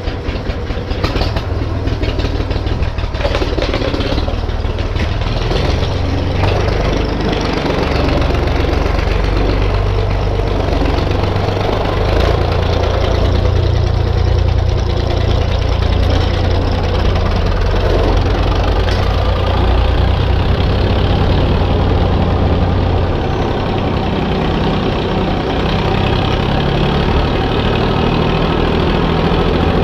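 Diesel tractor engine running steadily under load, pulling a second tractor, an IMT 533, on a chain to tow-start it.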